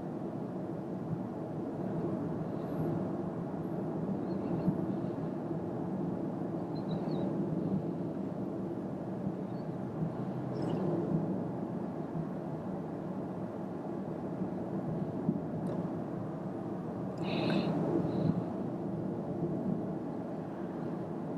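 Interior driving noise of a Toyota Corolla 125h hybrid at road speed: a steady rumble of tyres and wind. A brief, higher-pitched sound rises over it about seventeen seconds in.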